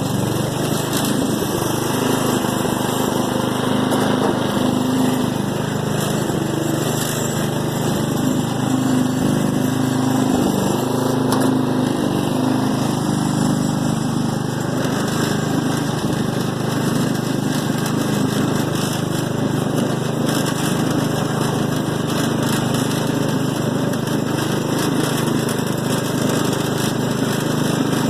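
Small Allis-Chalmers riding lawn mower engine running steadily, its pitch shifting slightly now and then.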